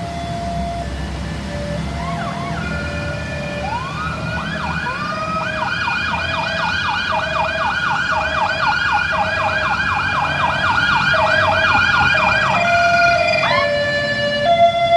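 Ambulance siren growing louder as it approaches: a slow two-tone hi-lo alternation switches about four seconds in to a fast yelp of rising sweeps, about three to four a second, then returns to the two-tone near the end.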